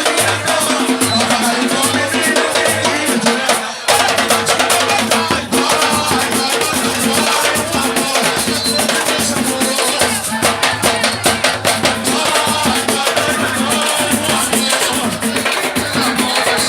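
Brazilian percussion group playing an instrumental groove: drums with shakers and rattles in a fast, steady beat, with a brief break about four seconds in.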